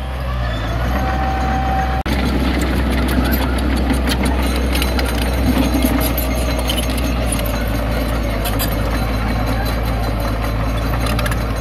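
Heavy diesel engine of earthmoving machinery running steadily, with scattered clicks and rattles over it. The sound cuts out for an instant about two seconds in.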